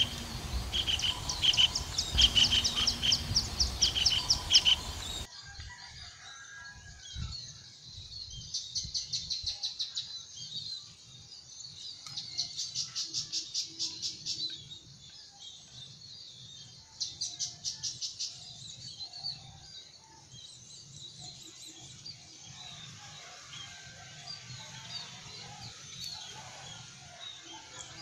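Javan kingfisher calling: bursts of rapid, harsh repeated notes, about five a second, each burst lasting a couple of seconds with pauses between. The calls are loudest in the first five seconds, then come as quieter bursts.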